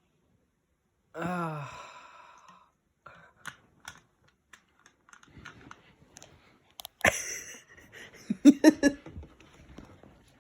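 A person's voiced sigh, falling in pitch about a second in, then scattered small clicks and a noisy burst, and near the end a quick run of four or five loud gulps, taken while chugging sparkling water.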